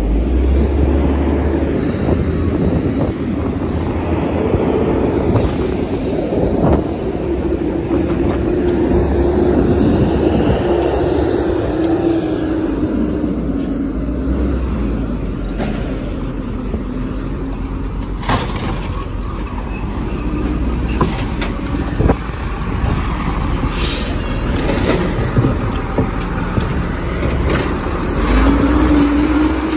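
Side-loading garbage truck running close by, its engine note rising and falling several times, with scattered clanks and knocks in the second half.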